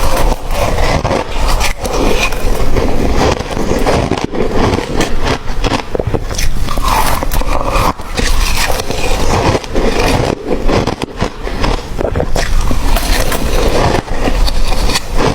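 Crunchy ice being bitten and chewed: a dense, continuous run of sharp cracks and crunches.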